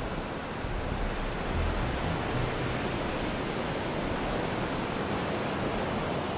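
Steady rushing ocean ambience, a continuous wash of water-like noise with no music or voice over it.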